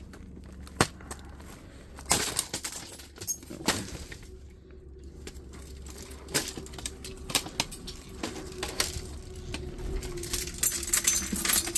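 Scattered clicks and clatter of small plastic and metal parts being handled while a fax machine is taken apart, growing busier near the end. A faint steady hum sits underneath from about four seconds in.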